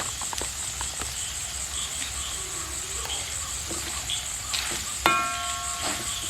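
Beef sizzling as it fries in coconut oil in a heavy pan, a steady hiss. About five seconds in, a metal spoon strikes the pan with a sharp clang that rings on and fades.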